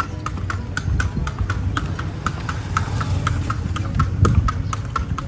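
Kalesa horse's hooves clip-clopping on a hard street at about four beats a second, over a steady low rumble.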